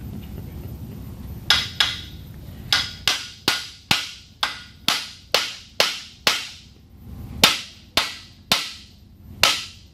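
Hand hammer striking the metal bowls of a pump's bowl assembly to knock them loose for disassembly. Two blows come about a second and a half in, then a steady run of ringing strikes at about two a second.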